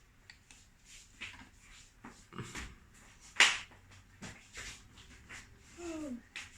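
Laptop being handled after a memory upgrade: scattered light clicks and taps, with one sharper click about three and a half seconds in.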